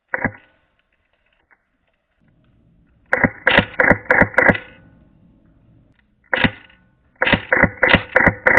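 Airsoft rifle firing: a single shot, then a quick string of about six, another single shot, and near the end a fast steady stream of about five shots a second, each a sharp ringing crack.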